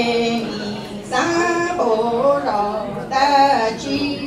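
A woman's solo voice singing Hmong lug txaj, a chanted sung poem, in long held notes that slide between pitches, with short breaks between phrases.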